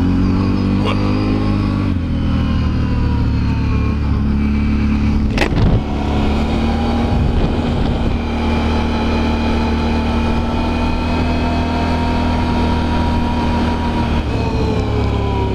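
Can-Am Renegade 1000 ATV's V-twin engine running under way, its pitch rising and falling with the throttle, holding steady for several seconds, then dropping near the end. A single sharp click about five seconds in.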